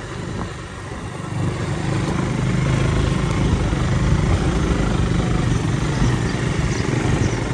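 Motorcycle engine running as the bike rides slowly along a rough dirt road. It eases off briefly near the start, then grows a little louder and runs steadily.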